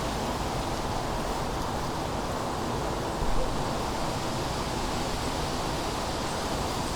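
Autumn wind blowing, a steady rushing noise, with a brief louder gust about three seconds in.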